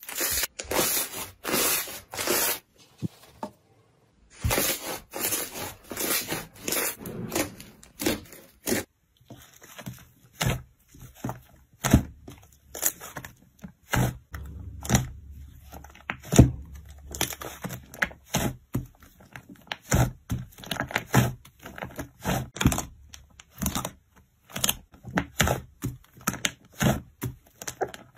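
Hands pressing, poking and kneading slime: a quick run of short crackling, squishing pops, with a brief pause about three seconds in.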